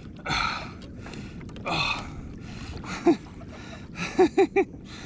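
A man's heavy breaths, two long ones, then a short grunt and three quick grunts near the end.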